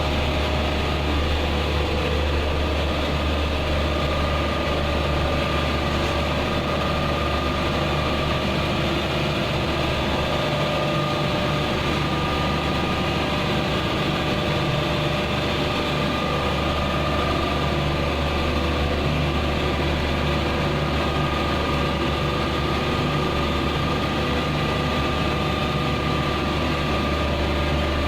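Air conditioner outdoor unit running: a steady low hum with a faint, even whine over it.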